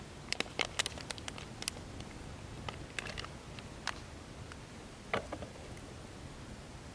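Light crinkling and clicking of a plastic bag and a small plastic container being handled, in short scattered clusters, busiest in the first two seconds.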